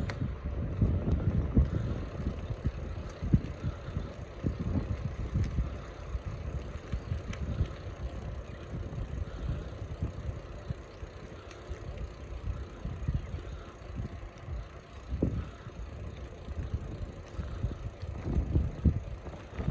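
Wind buffeting the microphone in uneven gusts, a low rumbling rush that swells and fades.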